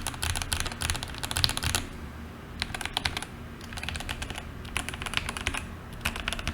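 Keychron K8 Pro mechanical keyboard with red linear switches and PBT double-shot keycaps being typed on, in quick bursts of keystrokes separated by short pauses.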